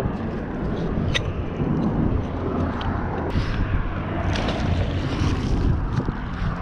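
Wind buffeting the microphone over a steady low engine-like drone, with a couple of light clicks.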